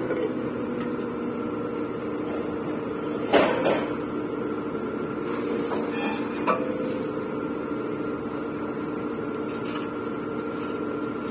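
Truck-mounted borewell drilling rig running steadily with a hum of several held tones, and two sharp knocks, the louder about three seconds in and a smaller one near the middle, as work goes on at the bore hole.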